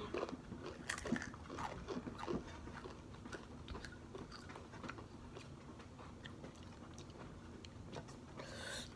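Crunching of Takis rolled tortilla chips being bitten and chewed: irregular crisp crunches, busier in the first couple of seconds, then fainter. A brief hiss near the end.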